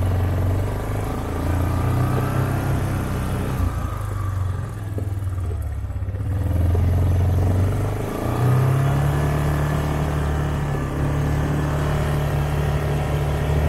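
Quad bike engine running under way at a steady low pitch, stepping up to a higher steady pitch about eight seconds in.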